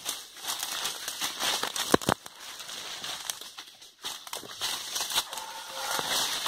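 Dry leaves and branches rustling and crackling as they brush past while moving through forest undergrowth. There is a sharp snap about two seconds in.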